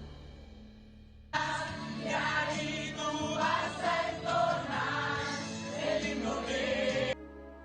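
Soft background music, cut abruptly about a second in by a louder stretch of choir singing, which stops just as suddenly near the end and gives way to quieter sustained music.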